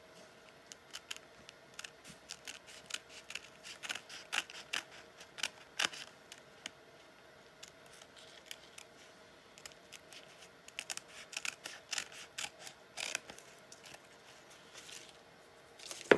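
Small scissors snipping through paper-backed fabric in quick runs of short snips. The snips thin out in the middle, pick up again, and a louder rustle comes right at the end.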